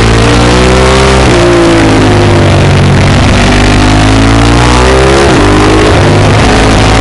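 Ducati 1098's L-twin engine at high revs on a hard ride, its pitch climbing under acceleration and dropping sharply about a second in and again about five seconds in as the throttle is closed or gears change for the bends.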